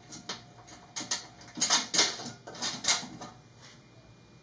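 Hands handling a plywood blower box, giving a run of irregular knocks, clatters and scrapes that is busiest in the middle and dies away after about three and a half seconds.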